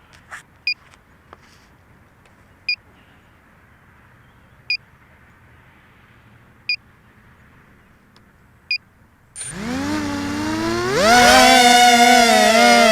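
A short two-tone beep repeats every two seconds. About nine seconds in, the motors of an FPV quadcopter spin up: a rising whine that climbs in steps, then holds as a loud, slightly wavering hum of several tones.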